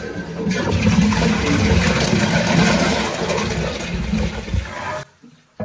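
A toilet flushing while lifted just off its floor flange: flush water gushes out of the outlet horn into the drain pipe, which cannot take it, so the water backs up and overflows. The rushing starts about half a second in and cuts off abruptly about five seconds in.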